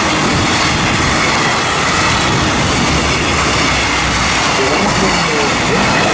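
JR Freight Koki container flat cars rolling past at speed: a loud, steady rumble and clatter of wheels on the rails.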